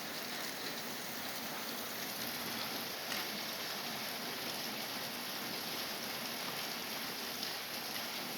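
Steady rain falling: an even hiss with a few louder drop taps.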